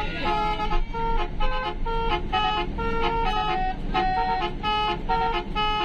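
Indonesian 'telolet' musical bus horn playing a quick, repeating tune of short held notes that step up and down in pitch.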